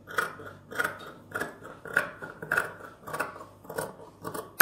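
Large tailor's shears cutting through fabric in a steady series of snips, about one every 0.6 seconds, with a sharper click at the very end.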